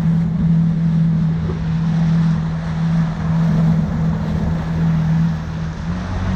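Jet ski engine running at a steady speed, a constant drone under rushing wind and water noise; its pitch steps up slightly near the end.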